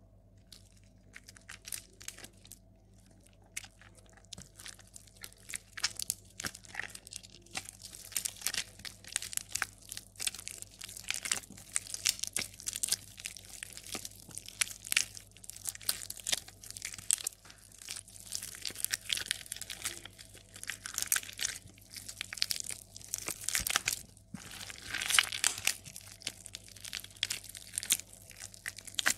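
Soaked, softened bar soap squeezed and crumbled by hand into mushy pieces: an irregular run of wet crackles and crunches that starts sparse and grows denser and louder after the first several seconds.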